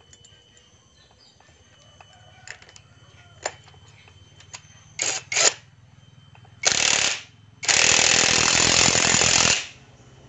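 Impact wrench run in two short blips, a half-second burst, then one steady run of about two seconds, tightening the clutch hub nut. Before it come a few light metal clicks of parts being handled.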